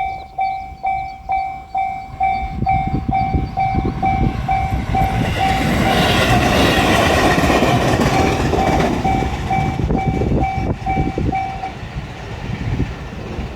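Japanese level-crossing warning bell clanging in quick repeated strokes as a JR Shikoku 7200 series electric train passes. The train's noise builds to its loudest midway, with wheels knocking over the rail joints. The bell stops about twelve seconds in while the wheel clicks carry on.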